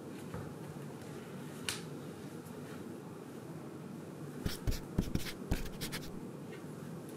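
Steady low room hum, with a single sharp click early and a quick cluster of clicks and low knocks from about four and a half to six seconds in.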